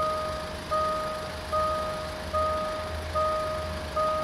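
Railway level crossing warning bell ringing steadily, about one strike every 0.8 s, each ding fading slowly into the next, over a low steady rumble.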